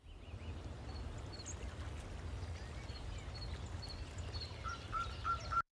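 Outdoor countryside ambience: a steady low rumble with small birds chirping now and then, and a quick run of repeated chirps near the end.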